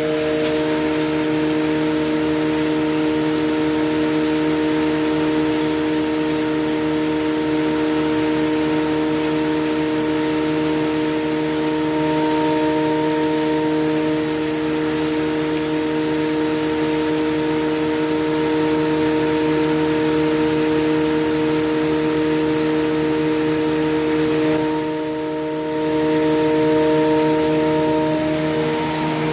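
Model 198 5.3 hp single-phase electric hammer mill running steadily as sawdust and wood chunks are fed in and ground to fine powder through its 2 mm screen: a constant hum of several steady tones over a rushing hiss, briefly quieter a few seconds before the end.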